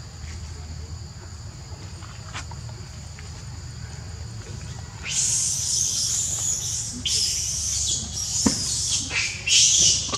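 Insects trilling steadily at a high pitch, two thin tones held throughout. About halfway in, a much louder hissing noise starts and comes and goes in irregular spells.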